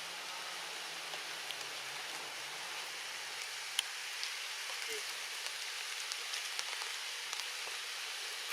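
Steady rain hissing on surfaces, with scattered individual drops ticking.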